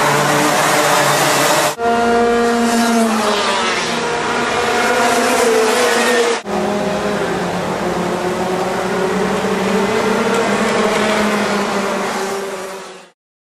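A pack of racing karts' two-stroke engines running at high revs, several engine notes rising and falling against each other as the karts pass and change speed. The sound cuts off abruptly near the end.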